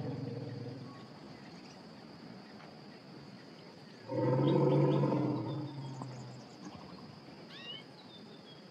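African elephant giving a low, pitched rumble. One call fades out in the first second and a louder one of about two seconds comes about four seconds in. A steady high insect drone and a few short bird chirps run under it.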